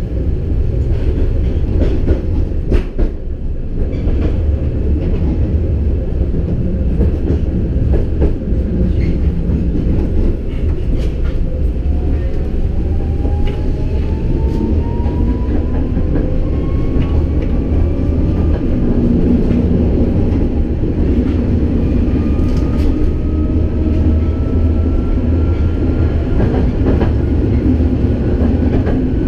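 Tatra K2 tram running, heard from inside the passenger car: a steady low rumble of wheels on rail, with scattered clicks over the rail joints. From about halfway through, a thin whine from the traction motors and gearing rises steadily in pitch as the tram picks up speed.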